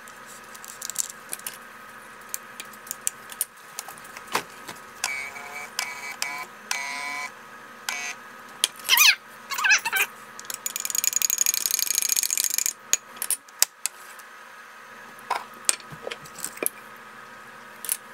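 Coffee being made at a kitchen counter: clinks and taps of a glass and utensils over a faint steady hum, a few short pitched tones near the middle, and liquid poured into a tall glass with a rising pitch, followed by about two seconds of hissing.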